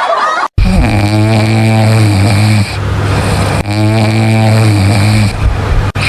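A man snoring loudly: long, steady, low-pitched snores about two seconds each, coming roughly every three seconds.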